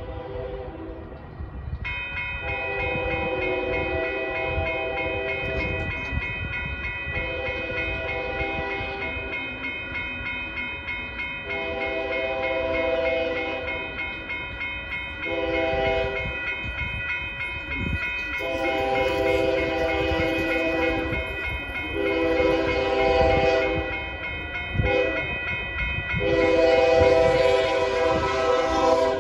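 Railroad crossing warning bell starts ringing about two seconds in as the gates come down, while an approaching train's multi-note air horn sounds a series of long and short blasts, with a long blast near the end.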